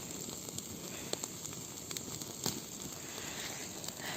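Small campfire crackling: a steady hiss with scattered sharp pops, the loudest about a second in and about two and a half seconds in.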